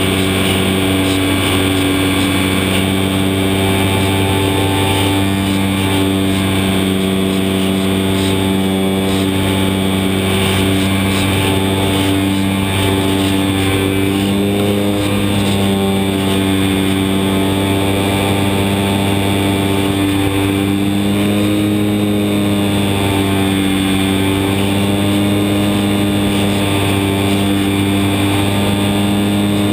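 Electric motor and propeller of a HobbyZone Super Cub RC model airplane in flight, heard close up from its underside: a steady buzzing whine that shifts slightly up and down in pitch a few times with throttle changes, over a hiss of rushing air.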